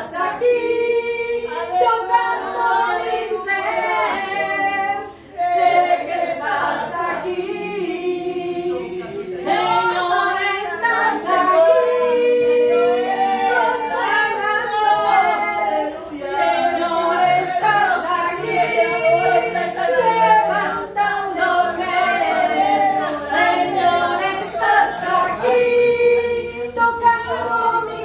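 A small group, mostly women's voices, singing a worship song together without instruments. The singing dips briefly about five seconds in, then carries on.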